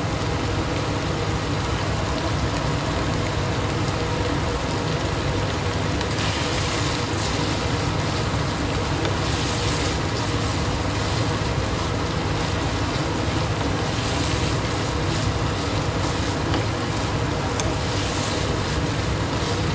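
Gas stove flame and a pan of minced beef in soy sauce simmering on it: a steady rushing noise with a low rumble, and brief spells of brighter hiss from the cooking sauce now and then.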